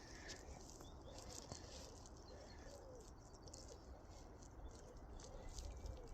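Quiet outdoor ambience: faint, low cooing bird calls repeat several times, with light scattered ticking sounds.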